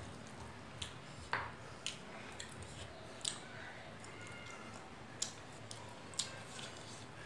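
Eating rice and chicken curry by hand: fingers working the food on a plate and chewing, heard as scattered short, sharp clicks and smacks over a quiet background.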